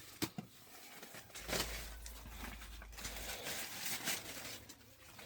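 Rustling and crackling of dry leaves and plants being brushed and handled, with a few sharp snaps. A low rumble of wind on the microphone comes in at about a second and a half and lasts about two seconds.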